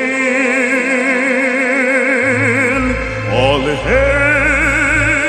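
Choral music: voices singing long held notes with wide, even vibrato, moving to a new note a little past three seconds in. Low bass notes come in about two seconds in.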